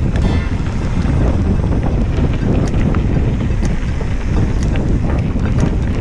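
Wind buffeting the microphone of a camera riding on a moving mountain bike, over a steady rumble of knobby tyres rolling on a loose gravel dirt track. Scattered sharp clicks and knocks from the bike and stones come through the rumble.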